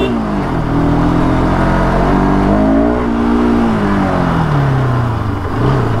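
Motorcycle engine climbing a rough, steep dirt track, its pitch falling, rising again around the middle, then falling as the throttle changes, over a steady rumble of the ride.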